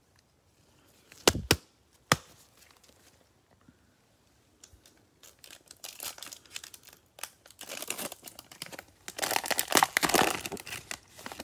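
Foil wrapper of a Panini Mosaic basketball card pack crinkling and being torn open, loudest near the end. About a second in there are three sharp clicks, the loudest sounds here.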